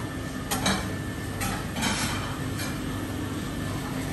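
Restaurant buffet room sound: a few sharp clinks and knocks of dishes and utensils over a steady low hum.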